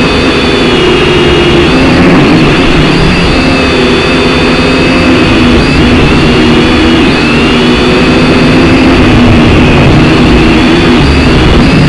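Syma X5C-1 quadcopter's small coreless motors and propellers buzzing in flight, several close pitches wavering up and down together as the throttle shifts. One of the four motors is newly replaced and under test.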